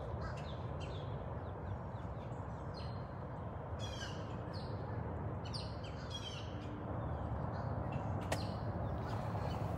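Birds calling: short, high, downward-sliding calls repeated at irregular intervals, over a steady low outdoor rumble. A single sharp click about eight seconds in.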